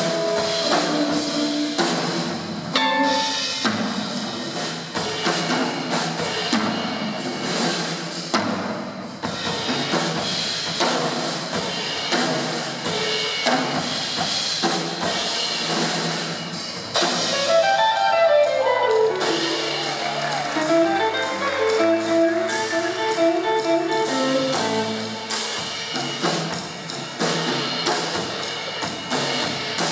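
Live jazz trio playing: a drum kit busy on cymbals and drums under electric guitar and bass lines. A quick run of notes falls and climbs again about two-thirds of the way through.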